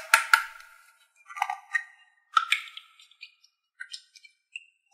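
Light plastic clicks and plinks with short ringing tones: a quick cluster right at the start, then a few more spread out, as the cap of a small plastic toy bottle is twisted open.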